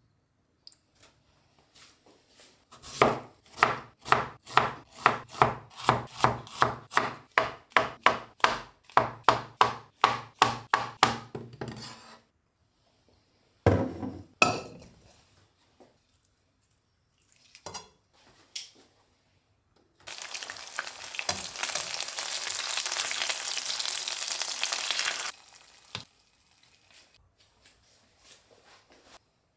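A knife chopping on a wooden cutting board, an even rhythm of about two strokes a second, followed by a couple of knocks. Later, chicken thighs sizzle in hot oil in a frying pan for a few seconds, the sizzle starting and stopping suddenly.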